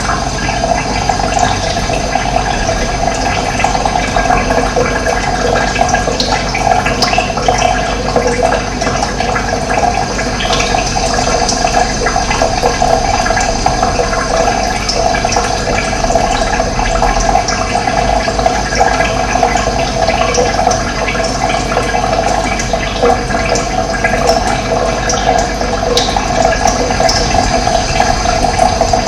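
Running water rushing steadily, an even unbroken flow.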